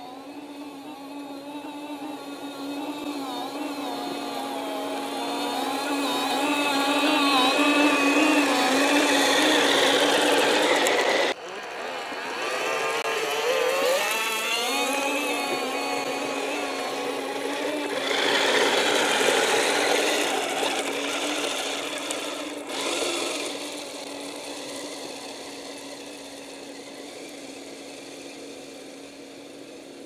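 Electric motors and gear drives of RC tracked snow vehicles, a Kyosho Blizzard SR and a Dickie Snowking toy groomer, whining as they drive through snow. The pitch rises and falls with the throttle. The sound breaks off abruptly about eleven seconds in and again shortly after twenty seconds, then fades toward the end.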